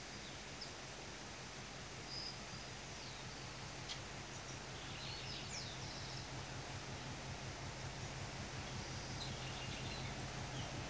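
General Motors G-22 diesel locomotive approaching at a distance: a low steady engine hum that grows louder through the second half. Several short bird chirps sound over it.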